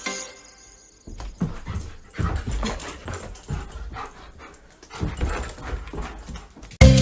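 A dog whimpering and yipping in short, irregular calls. Loud music cuts in abruptly near the end.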